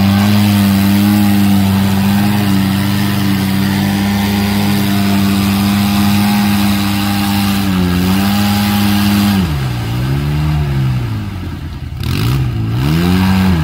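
Off-road 4x4's engine revving hard and held at high revs for several seconds. Then the revs drop and climb again in a couple of swells near the end.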